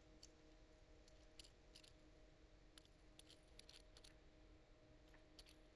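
Faint, scattered small clicks from a fidget spinner being handled, over near silence with a faint steady hum.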